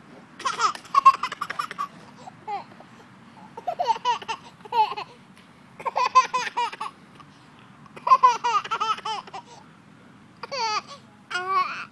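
Toddler giggling in about five bouts of high-pitched laughter, each a second or so long, with short pauses between.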